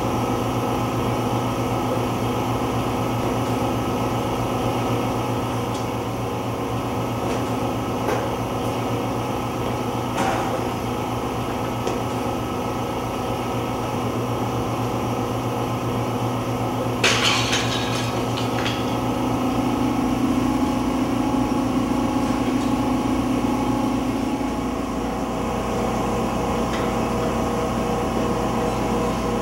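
Steady low electrical hum and drone made of many held tones, with a few faint clicks, a brief crackle about 17 seconds in, and a low tone that swells and fades between about 19 and 24 seconds.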